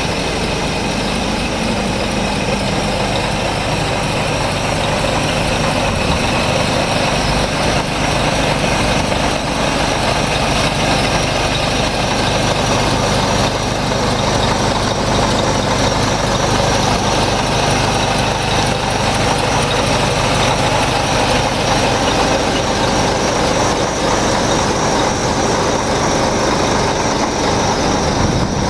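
Scania R470 truck's straight-six diesel engine idling steadily.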